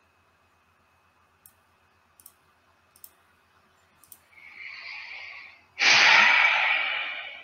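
A person draws a breath in, then lets out a long, loud exhale close to a headset microphone, sharp at the start and fading away, like a sigh while thinking. A few faint clicks come before it.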